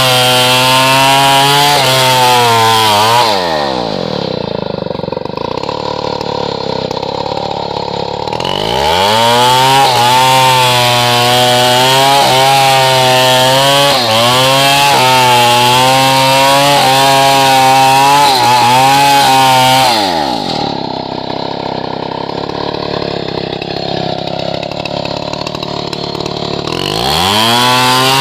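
Stihl 070 two-stroke chainsaw running at full throttle through hardwood, its pitch wavering under the load of the cut. It drops back to idle twice between cuts and revs up again after each.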